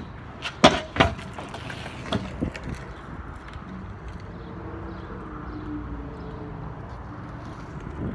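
Havoc Descendant stunt scooter landing on concrete as the rider drops off a ledge: two sharp clacks of wheels and deck about half a second apart, the second the loudest, then a few lighter knocks as it rolls on.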